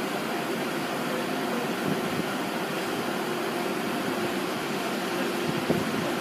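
Steady hum of a passenger train standing at the platform, a constant tone over an even whirring noise, with a couple of faint knocks about two seconds in and near the end.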